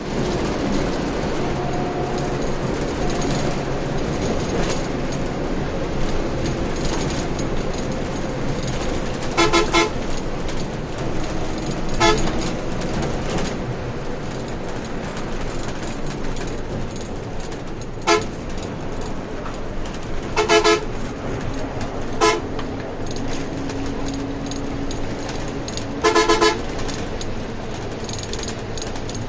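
Steady engine and road noise heard from inside a moving coach bus, broken by about six loud vehicle-horn blasts. The first comes about a third of the way in; some are single short toots and others quick pulsing bursts, the last near the end.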